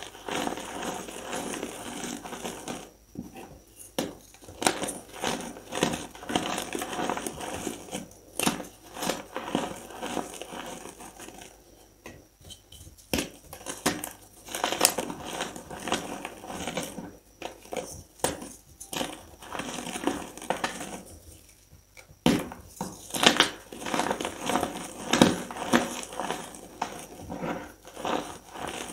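Pieces of reformed gym chalk crumbled and crushed between the fingers: a run of dry, irregular crunches and crackles with softer powdery rustling, easing off briefly twice.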